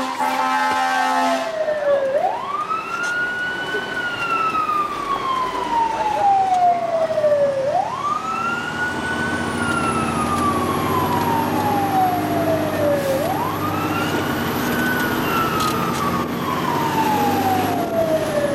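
Fire engine siren heard from inside the cab, wailing: each cycle rises quickly, then falls slowly, repeating about every five and a half seconds, over the truck's engine running underneath. A brief steady pitched tone sounds at the very start.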